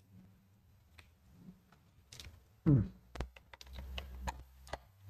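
Small plastic clicks and knocks of USB cable plugs and a palm-sized USB tester being handled and plugged together, scattered and irregular, with a short murmur from the person about halfway through.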